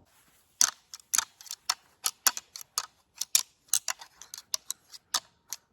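Deer antlers rattled and smacked together: a fast, irregular run of sharp clacks, about three or four a second, starting about half a second in. This is the imitation of two bucks sparring, used to call in a rutting buck.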